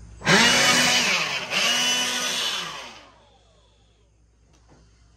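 A motor spins up sharply and runs loud for about two and a half seconds, with a brief dip in the middle, then winds down with a falling pitch.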